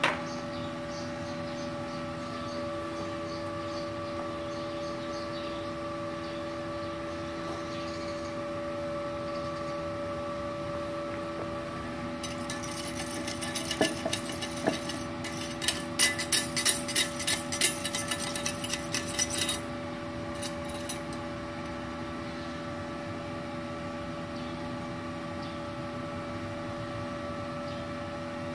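Multipro TIG 200A-SA inverter welder switched on and running with a steady hum. From about twelve seconds in, for some seven seconds, a rapid run of light metallic clicks and clinks sits over the hum.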